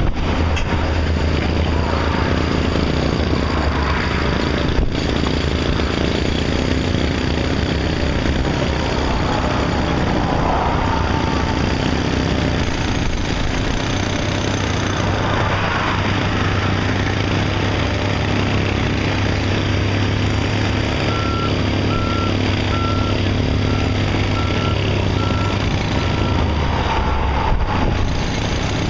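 Heavy construction machinery running steadily, with a vehicle's reversing alarm beeping repeatedly for several seconds in the second half.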